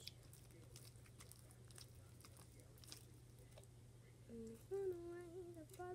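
Faint wet clicks and pops of purple slime being stretched and pulled apart by hand; the slime has too much activator in it. About four seconds in, a girl starts humming.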